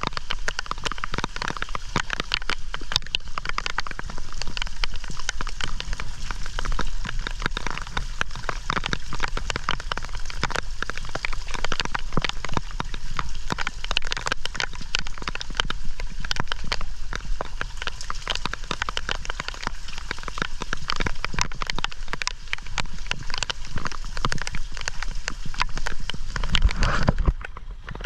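Rain falling hard, a dense steady patter of drops striking hard surfaces. Near the end there is a brief low rumble, and then the patter thins.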